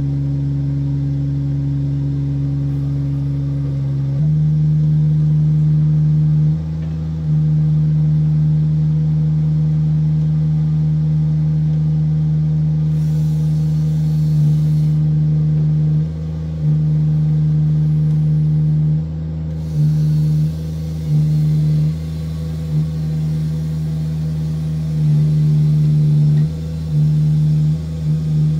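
Diesel engine of a tracked digger derrick running with a steady low drone. It speeds up about four seconds in, then repeatedly dips and picks up again in the second half as the hydraulic boom and auger are worked.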